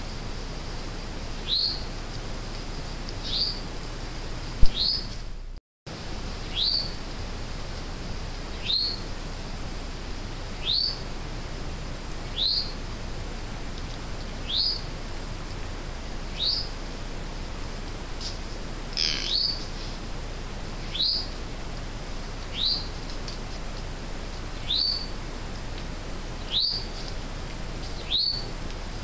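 A high, short call that slides downward in pitch, repeated steadily about every two seconds, which the uploader takes for a doe calling her fawn. A single sharp click comes about four and a half seconds in, followed by a brief cut-out of the sound.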